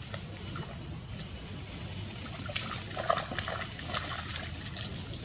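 A macaque's hands and feet splashing through shallow muddy water, with a cluster of splashes and dribbles from about two and a half to five seconds in. A steady high insect drone runs underneath.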